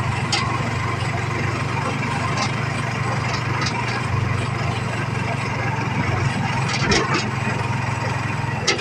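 Small motorcycle engine running at a steady speed while riding, a constant low drone, with a few short knocks, near the end among them.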